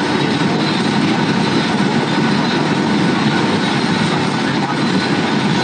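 Airliner cabin noise in flight: the engines and the airflow over the fuselage heard from a window seat, a steady, even rush with a few faint steady tones above it.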